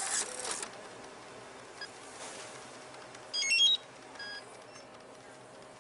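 Point-of-sale register beeping as it is powered up: a quick run of short electronic beeps at several pitches about three and a half seconds in, followed by a single fainter beep. A brief rustle comes at the very start.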